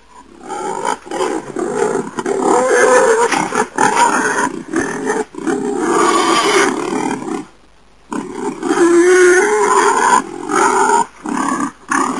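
Wild boar calling in long, rough, drawn-out bouts several seconds each, with a break about two-thirds of the way through and a few short gaps near the end.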